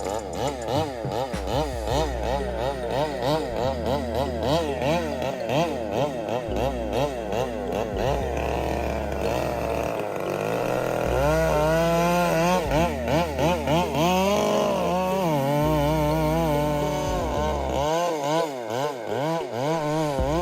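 Gasoline chainsaw cutting through wood, its engine pitch wavering quickly up and down as the chain bites. From about halfway it swings in slower, wider rises and falls.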